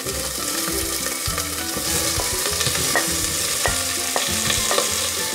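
Chopped spring onion and green pepper hitting hot olive oil in a steel pot and sizzling steadily, as a wooden spoon scrapes them off a plate, with a few light knocks of the spoon between about two and four seconds in.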